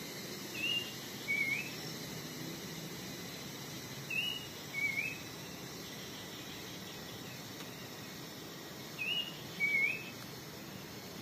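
A bird calls three times, a few seconds apart. Each call is a pair of short whistled notes, the second lower and ending in an upward flick. Under the calls runs a steady hiss of forest background.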